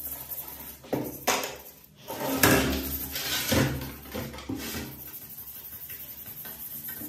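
Small brush scrubbing the soapy panels of a desktop PC case. In the first half come several louder knocks and scrapes as the case is handled and turned; after that, quick, even brush strokes.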